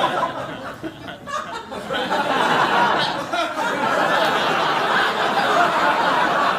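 Studio audience laughing and chuckling, a spread-out crowd laugh that dips about a second in and swells again from about two seconds in.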